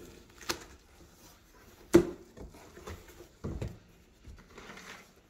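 Cardboard shipping box being opened by hand: a few knocks of cardboard flaps, the sharpest about two seconds in, with faint rustling of packing paper between them.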